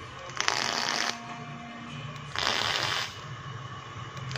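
Vape atomizer coil fired twice on the Hotcig R233 mod, each firing a short crackling sizzle of under a second: the repaired connector pin now makes contact and the coil heats.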